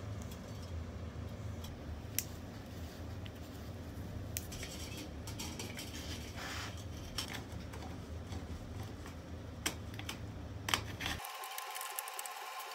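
Thin wire mesh and a tin disc being handled and pushed together on a steel bench: a light rustling scrape and a few sharp metal clicks over a steady low hum. The low hum cuts off near the end.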